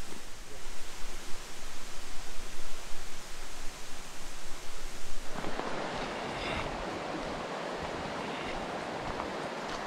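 Gusty rumbling wind buffeting the microphone for about five seconds, then a steady, even rush of a mountain stream's flowing water.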